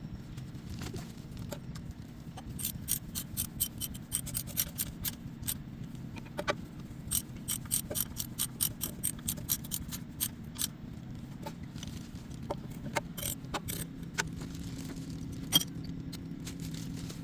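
Hand tools and metal parts clinking in a rapid, irregular run of sharp clicks, thinning out later, with one louder click near the end, over a steady low hum.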